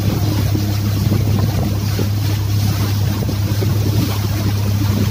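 Outboard motor of an inflatable rescue boat running steadily at speed, a constant low drone, with water rushing past the hull and wind on the microphone.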